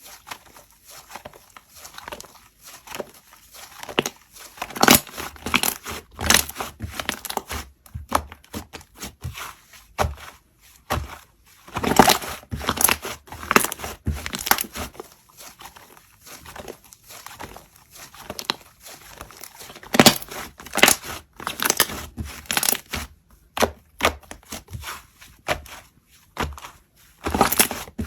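Slime being squeezed, pressed and stretched by hand, giving irregular crackling, popping and crinkling sounds, with a short lull near the end.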